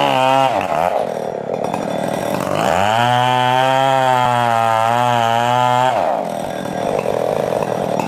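Stihl two-stroke chainsaw at full throttle cutting into a coconut palm trunk. The throttle is let off twice, so the engine falls back toward idle about half a second in and again near the end, with one long rev-up in between.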